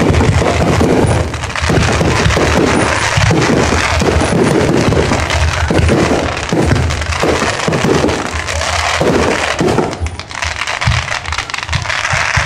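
Fireworks going off in a dense, continuous run of crackles and low booms, thinning briefly near the end.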